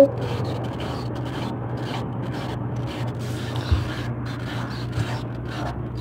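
Brastemp BWK12 top-loading washing machine running its spin cycle: a steady low hum under an even rushing noise, with a couple of faint knocks in the second half.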